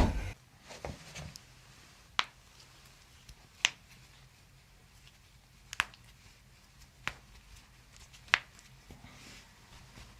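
About five sharp, single clicks, spaced a second or two apart, against a quiet room.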